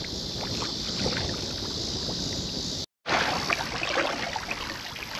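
Wind on the microphone and water noise from a kayak being paddled, with small paddle splashes and drips. The sound cuts out abruptly for a moment about three seconds in, then returns with busier splashing and dripping.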